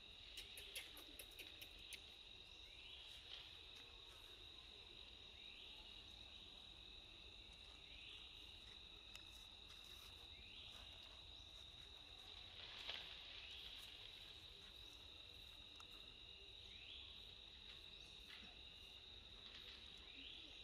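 Faint, steady high-pitched insect drone with a short rising chirp every two to three seconds, and a few light ticks near the start.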